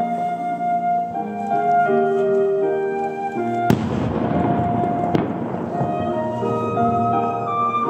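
Show music with sustained wind-instrument notes, over which a firework shell bursts with a sharp bang about halfway through, trailing off in a rumbling echo, with a second crack about a second and a half later.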